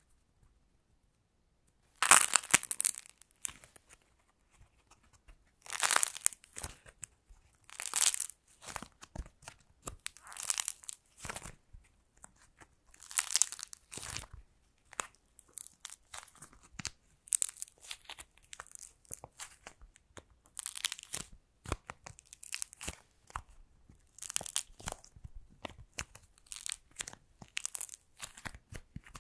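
Dried modelling clay cracking and tearing as hands squeeze and pull apart a clay macaron, then crumple it in a fist. The crackles come in bursts, the first and loudest about two seconds in, then one every two or three seconds. Near the end they become a denser run of smaller crackles and crinkles.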